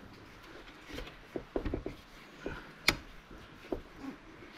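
Scattered clicks, knocks and rubbing as a hand works a rubber intercooler hose down among plastic and metal parts in an engine bay, with one sharp click about three seconds in.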